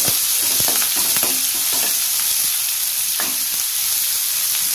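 Chopped onion and curry leaves frying in hot oil in a kadai on medium flame: a steady sizzle, with a few light knocks of the spoon as it is stirred.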